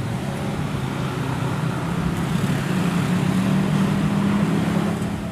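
Low, steady rumble of a twin-engine jet airliner's engines on landing approach, growing slightly louder as it comes nearer.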